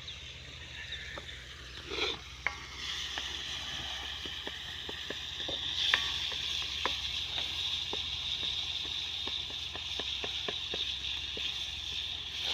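Dove and pigeon meat frying in hot oil in a pan: a steady sizzle that gets louder about three seconds in, with frequent small pops of spattering oil. There is a brief knock about two seconds in.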